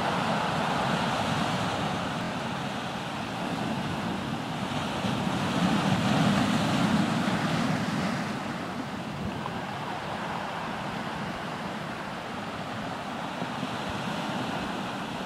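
Sea surf washing in over a boulder shore: a continuous rush that swells with a bigger wave about five seconds in and eases off a few seconds later.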